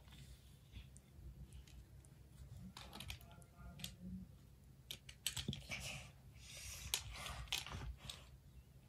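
Faint scattered clicks and taps of small plastic toy pieces being picked up and set down on a ruler, with light rustling of paper doilies as the ruler is handled.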